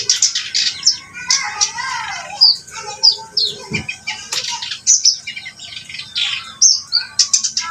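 Kerak basi, a reed warbler, singing continuously: a fast, varied run of scratchy chattering notes mixed with short whistled slurs.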